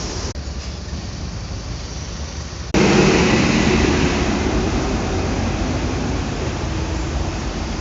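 Steady hiss of rain with street traffic noise under it. The sound jumps abruptly louder about three seconds in.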